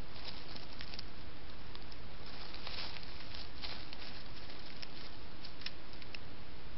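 A mustelid rustling and crackling dry leaves and twigs as it moves and sniffs through the leaf litter, in short scattered crackles over the trail camera microphone's steady hiss.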